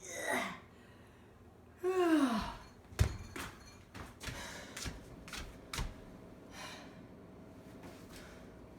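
A person's voice making a brief sigh-like sound at the start and a longer falling sigh about two seconds in, followed by a scatter of sharp clicks and light knocks.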